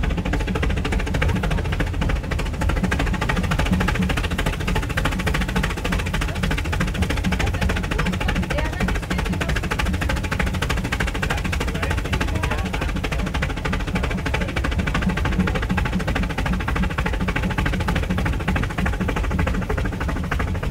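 Brienz Rothorn Bahn steam cog train in motion, heard from its carriage: a steady, rapid clatter of the locomotive and running gear on the rack track.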